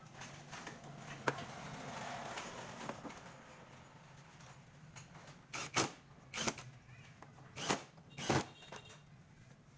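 About half a dozen sharp clicks and knocks, as of hard objects being handled. Most come in quick succession in the second half, over a low steady hum.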